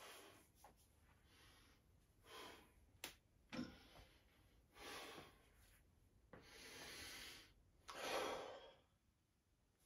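A man breathing heavily and hard, about six loud breaths with short pauses between them, winded from a heavy set of sumo deadlifts because of poor cardio fitness. A brief sharp click comes about three seconds in.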